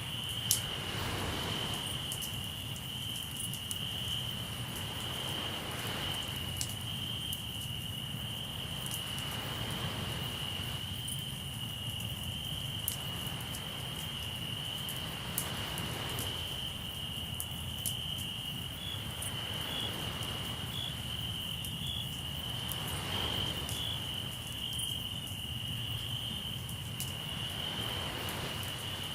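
Crickets trilling steadily, with a campfire crackling and giving off occasional sharp pops, the loudest about half a second in. Behind them the sea's surf swells and fades every five or six seconds.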